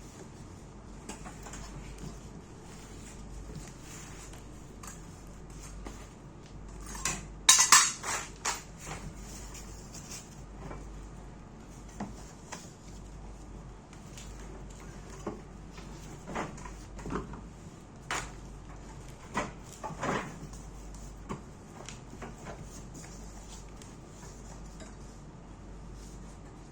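Hard parts and packaging being handled: scattered clicks and knocks, with a burst of louder clattering about seven seconds in and a few sharp knocks later on.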